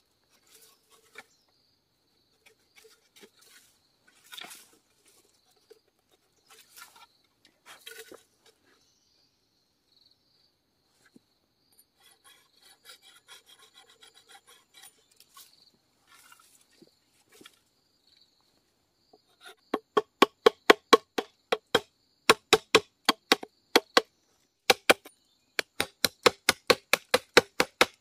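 Machete working a green bamboo tube: light, scattered scraping and shaving strokes, then, about two-thirds of the way in, rapid chopping strikes into the bamboo at about three to four a second, in short runs. The chopping is the loudest sound.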